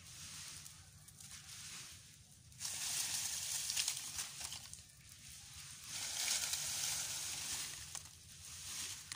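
A small fire of dry leaves and dry grass burning, crackling and hissing. It swells twice, about two and a half seconds in and again about six seconds in, as the flames take hold.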